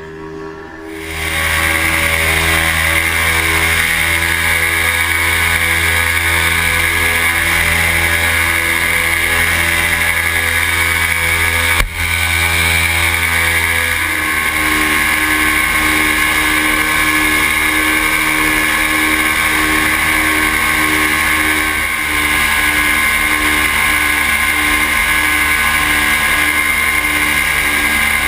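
Paramotor engine and propeller running hard in flight, close to the microphone. It comes up to full power about a second in, runs steadily, and settles to a slightly different pitch about halfway through, with a single sharp click just before that.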